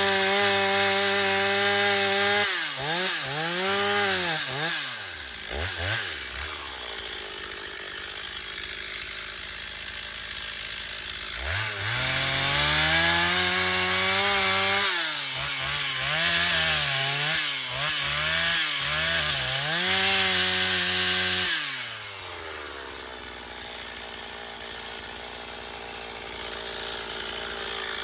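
Chainsaw engine running: held at high revs, then blipped up and down a few times and dropped to idle. About twelve seconds in it revs up again with the pitch wavering up and down, then falls back to idle for the last six seconds.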